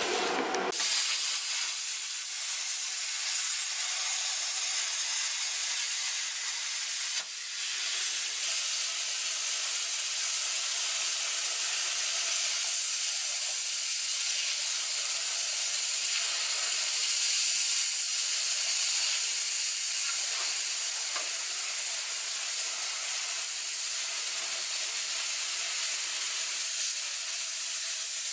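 Plasma cutter torch hissing steadily as its arc cuts through rusted body sheet steel. It starts about a second in, breaks off briefly about seven seconds in, then carries on.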